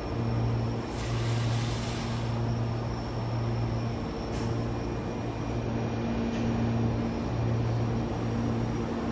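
Jōmō Electric Railway 03-series electric train standing with its auxiliary electrical equipment running: a steady low hum that dips briefly about once a second. There is a short hiss about a second in and a couple of faint clicks.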